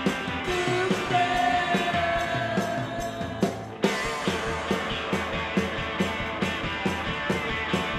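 Rock music with a steady drum beat and singing, with a brief break about halfway through.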